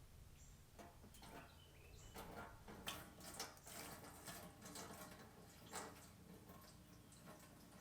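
Faint, irregular gurgling and splashing of gasoline being poured into a generator's fuel tank, with a few small clicks.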